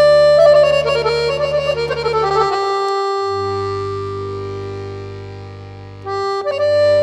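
Background music of held chords over a steady bass; about halfway through a long chord slowly fades, and the music picks up again about six seconds in.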